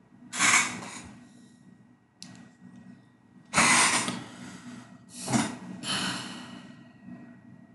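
Several loud breaths or sniffs close to the microphone, each a short hissy rush that fades out, with a sharp click about two seconds in.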